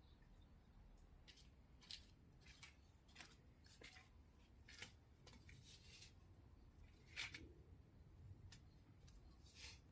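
Near silence, with about a dozen faint, short clicks and rustles scattered through it, the loudest about seven seconds in.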